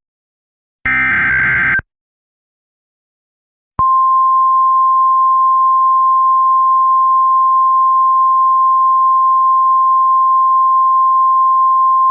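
Emergency Alert System broadcast: a buzzy digital data burst of about a second, the last of the header bursts, ends about two seconds in. After a short pause a loud, steady single-pitch attention tone of the weather-radio kind starts about four seconds in and holds.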